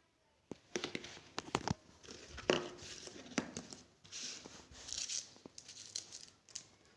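Product packaging being handled and unwrapped, crinkling and rustling, with several sharp clicks and taps in the first two seconds.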